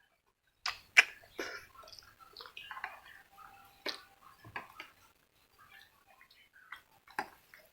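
A person eating noodles: irregular chewing and mouth sounds with sharp clicks and knocks, the loudest about a second in, after a brief near-silent start.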